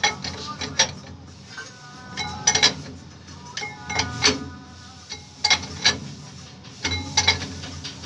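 Sharp metal-on-metal clanks with a brief ringing tone, often in pairs, every second or so, from a steel bar and socket being worked on a truck wheel hub's axle nut.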